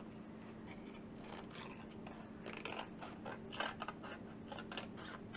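Scissors cutting through paper, trimming the excess from around a printed image: a series of short, quiet snips that come closer together from about halfway.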